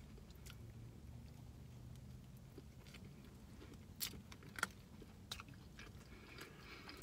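Quiet chewing of a chicken sandwich, with a few short, sharp clicks about four and four and a half seconds in as the sandwich is handled, over a low steady hum.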